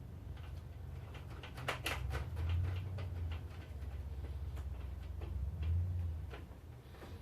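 Scattered small clicks and taps of cables and plastic connectors being handled and plugged into a USB 3 PCIe card inside a computer case, over a low rumble that swells twice.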